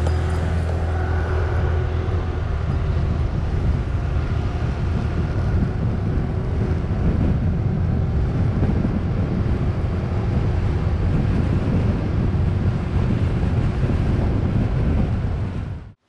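Motorbike riding along a road: steady wind rumble on the microphone over the motorbike's engine and road noise.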